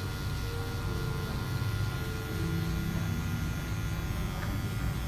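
Electric hair clipper buzzing steadily as it cuts short hair at the back of the neck, set to its closest taper-lever position for a skin fade.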